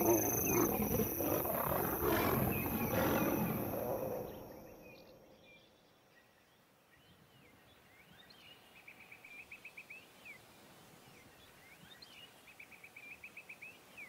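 Lions snarling and roaring in a fight, fading out over the first four seconds or so. After a short quiet, a bird calls twice, each time a rising note running into a fast trill.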